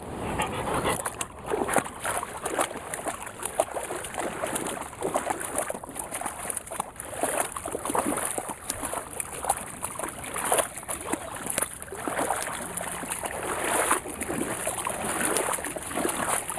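Irregular splashing and sloshing of a dog wading through shallow floodwater, with its walker's steps in the water alongside.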